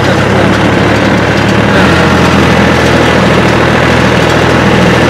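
Fiat 480 tractor's three-cylinder diesel engine running steadily while the tractor pulls a cultivator through ploughed soil.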